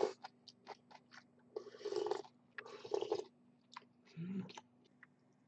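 Someone slurping and chewing pork noodle soup: two long slurps about two and three seconds in, among wet chewing and light clicks of chopsticks and spoon against the bowl.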